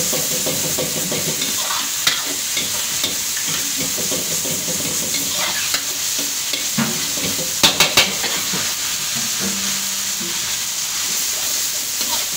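Chicken, noodles and vegetables sizzling in a hot wok while a metal ladle stirs and tosses them. Sharp knocks of the ladle against the wok come now and then, three in quick succession about eight seconds in.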